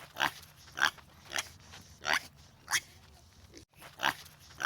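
Domestic pig calling in a string of short, sharp, high calls, about one every half to three-quarters of a second, with a brief break a little after the midpoint.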